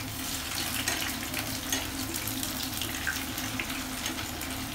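Bread cutlets shallow-frying in hot oil on medium heat: a steady sizzle with small crackling pops, while they are turned over in the pan with a knife.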